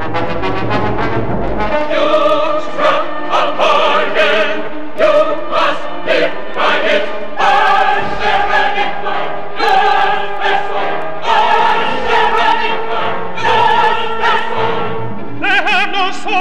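Dramatic orchestral cantata music: low brass at the start, then operatic singing with heavy vibrato over the orchestra, and a single vibrato voice coming in near the end.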